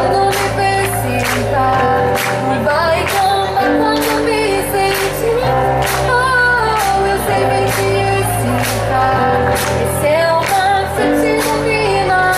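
Upbeat dance song with a female lead vocal over a steady drum beat and bass, played through the stage's loudspeakers.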